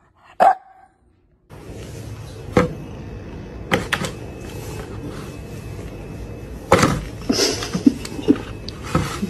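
A cat moving about in a plastic basin while being handled: scattered knocks and scrapes against the plastic over a steady hiss. A brief dog yip comes just at the start, followed by about a second of silence.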